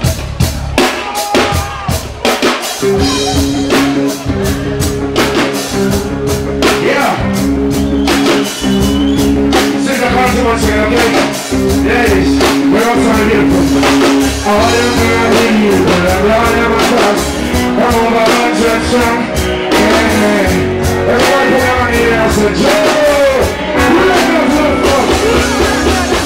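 Live band music with a man singing into a microphone over it. Drum hits open it, then bass and chords come in about three seconds in and the band plays a steady groove under the vocal.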